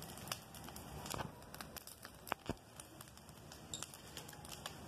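Wood bonfire crackling faintly with irregular sharp pops, a few of them louder snaps.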